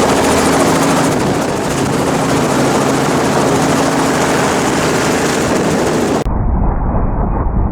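Helicopter running steadily in flight, a loud rotor-and-turbine drone with a constant hum. About six seconds in the sound cuts abruptly to a muffled, deep rumble.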